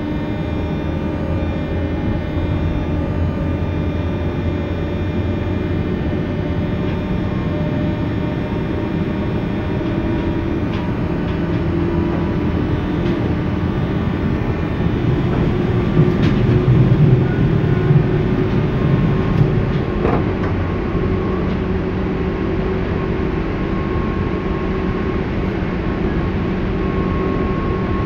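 JR 201 series electric train running, heard from on board: a steady rumble with several steady tones over it. The rumble grows louder for a few seconds past the middle, with a few sharp clicks.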